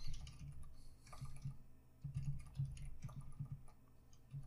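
Computer keyboard typing: two runs of keystrokes with a short pause between them.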